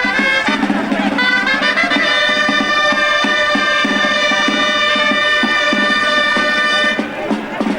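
Gralles, the loud, reedy Catalan shawms of castells music, playing a melody that settles into one long held note, with a drum beating underneath. The gralles stop about seven seconds in.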